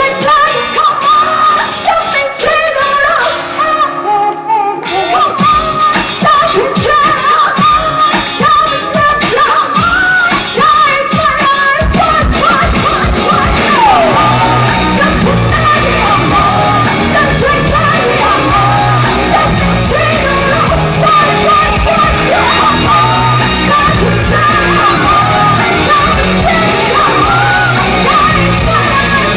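Live pop-rock band and singer performing. The accompaniment is thin at first, and the full band, with bass and drums, comes in about twelve seconds in.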